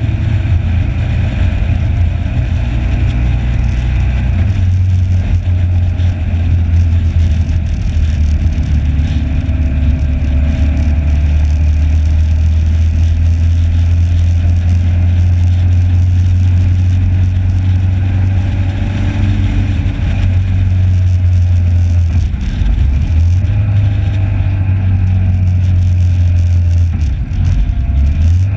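Motorcycle riding at speed, heard from on board: a steady heavy rumble of wind buffeting the camera's microphone, with the engine's note drifting up and down a little as the throttle changes.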